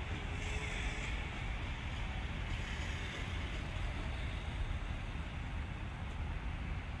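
Steady outdoor background noise: a low rumble with a hiss above it, unchanging throughout.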